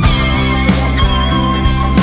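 Rock band playing an instrumental passage: electric guitars with held lead notes over a drum kit.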